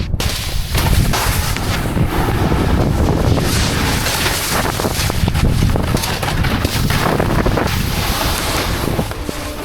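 Wind buffeting a helmet-mounted action camera's microphone while snowboarding, a steady loud rumble and rush.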